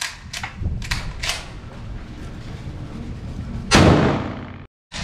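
Pump-action shotgun: a few sharp metallic clacks in the first second and a half as the action is worked, then a loud shot about three-quarters of the way through. The shot's echo is cut off abruptly near the end.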